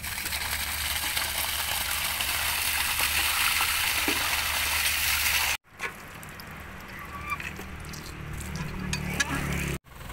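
Fire hydrant being opened with a hydrant key, water rushing out with a loud hiss that builds over the first few seconds and cuts off abruptly about halfway through. After that, a quieter low hum with a few light clicks.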